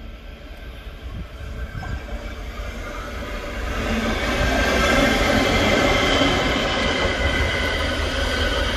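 Diesel locomotive approaching and passing close by, its engine rumble growing louder from about four seconds in, with a high-pitched whine over it.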